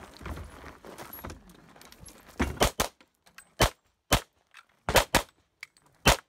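Handgun shots in rapid practical-pistol fire: about eight sharp reports starting about two seconds in. Three come in fast succession, then singles, then a quick pair, with one more near the end.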